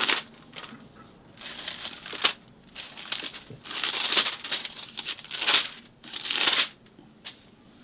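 Thin pages of a well-worn Bible being leafed through by hand: a run of papery rustles and crinkles as page after page is turned.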